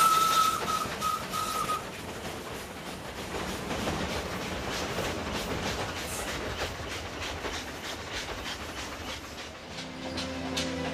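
Steam train running along the track, its wheels clicking over the rail joints. The locomotive's whistle holds one steady high note that breaks off in short stutters about two seconds in.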